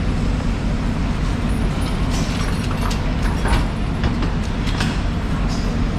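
A steady low mechanical rumble, with a few short sharp clicks and scrapes from a large knife cutting into a bluefin tuna's head, clustered between about two and five seconds in.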